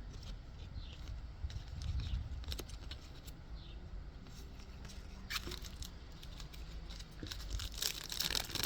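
Wild birds chirping in short falling notes over a low wind rumble on the microphone, then crinkling of plastic card packaging being handled, once about halfway through and more steadily near the end.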